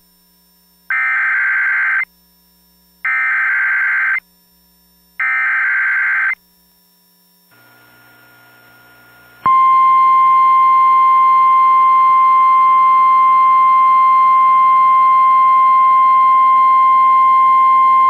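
Emergency Alert System activation on NOAA Weather Radio: three one-second bursts of buzzy SAME digital header data, then, about nine and a half seconds in, the loud steady 1050 Hz warning alarm tone. Together they signal a tornado warning.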